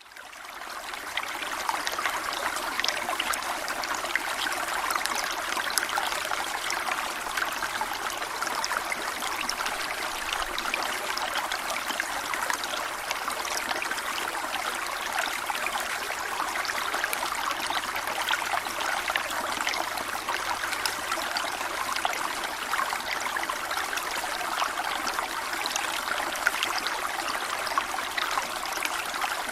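A small stream running over stones, a steady babble and trickle with fine splashes, fading in over the first second.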